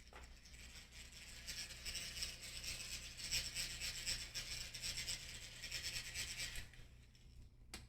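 Rapid, continuous scraping and rubbing of a small hand tool on a hard surface while rosin flux is being prepared for soldering. It starts about a second in and stops shortly before the end.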